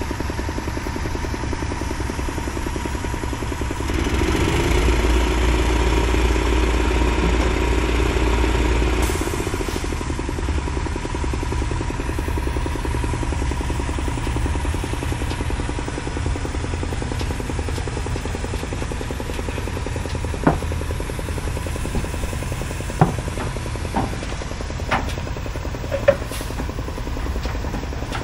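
A service truck's engine runs under load as it drags a heavy, non-running military truck off a trailer. It pulls harder and louder for about five seconds starting about four seconds in. Several sharp knocks come near the end.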